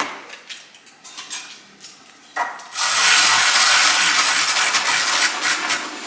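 Handheld battery milk frother whirring in a glass, a loud steady whir that starts about two and a half seconds in. A few light clicks and knocks of handling come before it.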